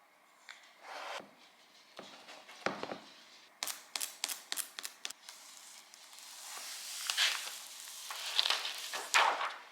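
Close handling noises: a few soft swishes and knocks, a quick run of about six sharp clicks, then a longer rustling, rubbing sound that builds toward the end.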